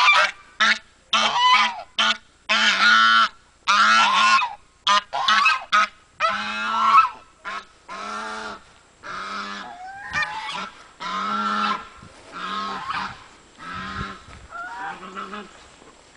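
Geese honking over and over in a quick run of loud, harsh calls, growing fainter and more spaced out after about six seconds.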